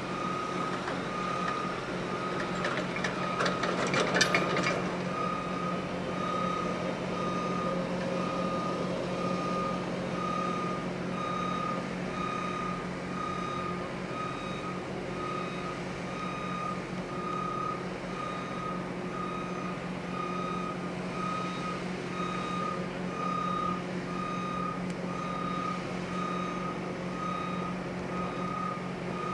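A heavy work vehicle's backup alarm beeping at a steady pitch, about once a second, over its engine running steadily. A short burst of clattering comes about four seconds in.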